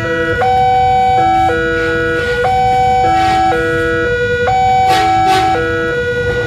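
Railway level-crossing warning alarm sounding: a repeating electronic chime of held notes alternating between a higher and a lower set, signalling an approaching train.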